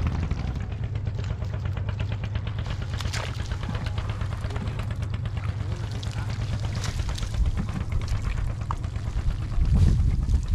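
Hands working a wet fishing net on soft tidal mud, making many small wet clicks and crackles over a steady low rumble. There is a louder low thump of handling near the end.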